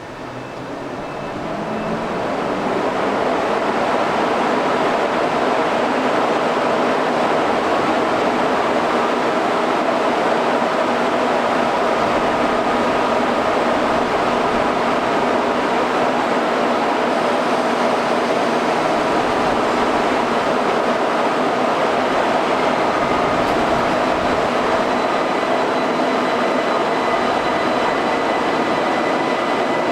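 A train moving off and running on: its noise builds over the first three seconds, then holds as a steady rumble with a faint high whine running through it.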